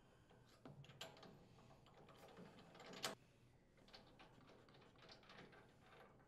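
Faint metal clicks and rattles of a spark plug wrench being turned as it loosens and unthreads the spark plug from a small engine's cylinder head, with one sharper click about three seconds in.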